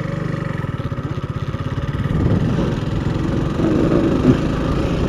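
Motorcycle engine running at low speed, its exhaust beat pulsing evenly, rising a little in level after about two seconds.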